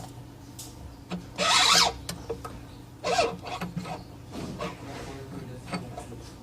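Objects being handled: short rubbing and scraping sounds with a few clicks, the loudest about one and a half seconds in and another about three seconds in, over a steady low hum.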